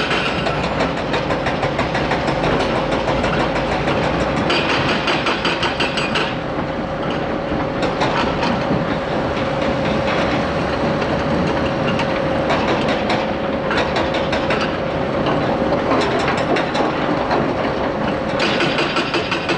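Tracked hydraulic excavator working: a diesel engine running under load with a steady hydraulic whine, over continuous metallic rattling and clanking. A higher hiss comes in for a few seconds at the start and again near the end.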